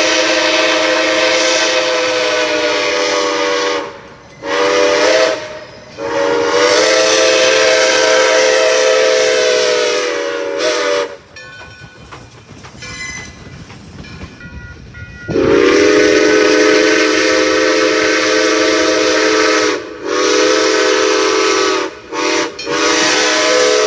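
Steam locomotive whistle sounding several notes at once in a series of blasts. First comes a long blast, then a short one, then another long one. After a few seconds of quieter hiss, the whistle comes up to pitch in another long blast, followed by a few short toots.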